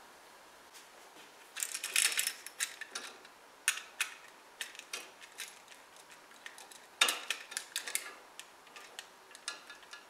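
Screwdriver working the brass screw terminal of a Leviton LED dimmer switch as a wire is tightened down under it: irregular small metallic clicks and scrapes in several short bursts, loudest about two seconds in and again about seven seconds in.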